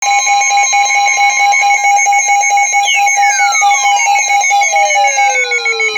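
Weather-radio emergency alert tones before a flood warning: a steady high alarm tone mixed with rapidly pulsing higher tones, very loud. About three seconds in, a further tone starts high and slides steadily down in pitch.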